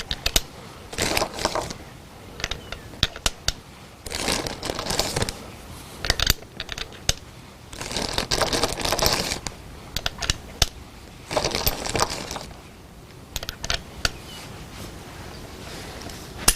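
Handling noise at a shooting bench: scattered clicks and taps, with four spells of rustling about a second long each.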